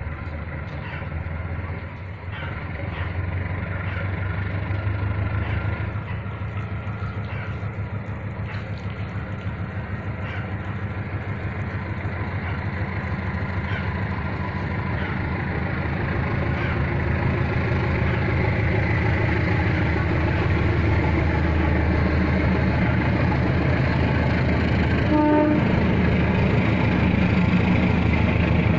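Diesel locomotive engine approaching a level crossing, its low rumble growing steadily louder, with a brief horn note about 25 seconds in.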